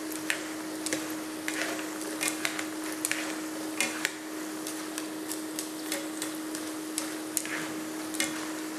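Chip-cut potatoes being stirred in hot oil during their second frying, with wooden chopsticks and a mesh skimmer in a ceramic frying pan: frequent light clicks and knocks over a steady hiss of oil. The clacking of the fries against each other is the sign that their surface has turned crisp.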